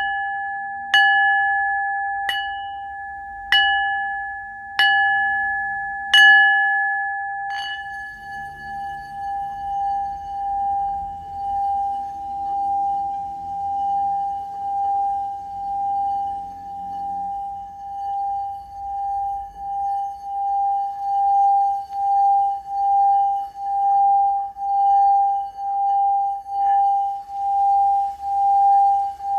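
Singing bowl struck about six times, roughly once every second and a half, each stroke ringing on into the next. From about eight seconds in it changes to one sustained singing tone that pulses steadily and swells louder toward the end, as when the rim is rubbed.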